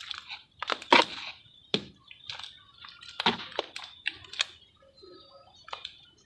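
Molded sand-and-cement shapes cracking and crumbling in a run of irregular sharp crunches, the loudest about a second in.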